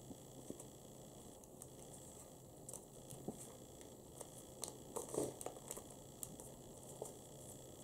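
Folded paper crinkling and crackling as an origami tank turret is pulled open by hand. Scattered soft crackles come throughout, busiest and loudest about five seconds in.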